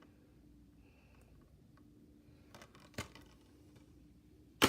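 Plastic Blu-ray case being handled in a quiet room: a couple of faint clicks, then one sharp, loud plastic click near the end.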